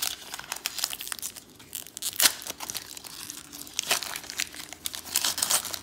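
Plastic wrapper of a Panini Mosaic basketball card pack crinkling and crackling in the hands as it is worked open, with sharper crackles just after two seconds in and just before four.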